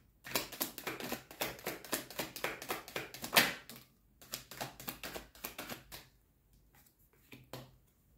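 A deck of tarot cards being shuffled by hand: a quick run of card edges flicking and clicking against each other, with one louder swish of cards about three and a half seconds in. Near the end it thins to a few faint ticks.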